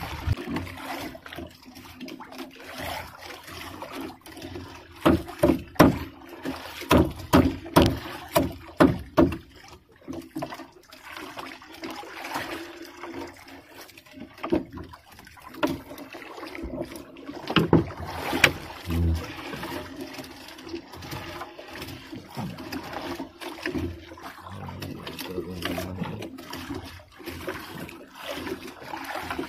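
Wet gill net being hauled by hand over the side of a small wooden outrigger boat, water trickling and splashing off the mesh. A quick run of knocks and thuds against the hull about five seconds in, and a few more later, over a faint steady low hum.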